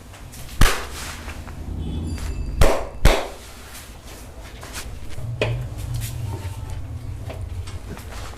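Sharp slaps of hands striking the body during a massage: one near the start, two more in quick succession about half a second apart, and a lighter one later, over a low room rumble.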